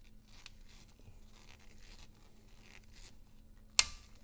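Torque screwdriver being turned on a battery terminal nut: faint rubbing and ticking of gloved hands on the tool, then one sharp click near the end, the tool breaking away at its set torque.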